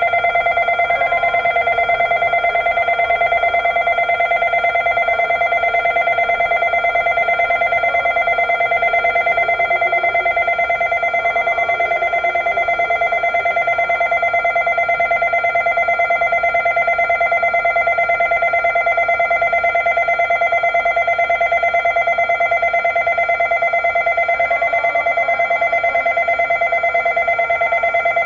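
An electronic bell or alarm ringing continuously at one fixed pitch with a rapid pulse, with no break.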